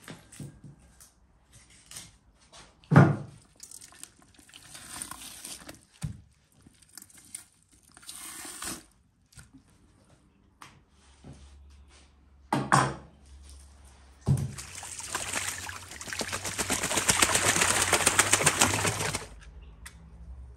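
Two heavy knocks of a knife on a wooden chopping board as meat is cut, about three seconds in and again past the middle, then about five seconds of steady pouring into a plastic bucket.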